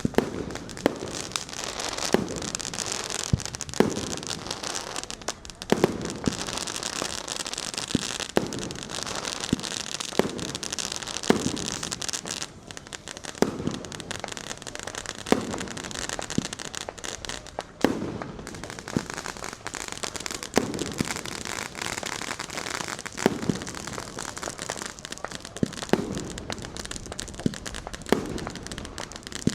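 Fireworks going off all around: sharp bangs about once every second or two over continuous crackling.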